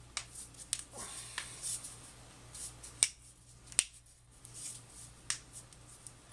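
Finger knuckles being cracked by a chiropractor: a series of short, sharp pops, the two loudest about three and four seconds in.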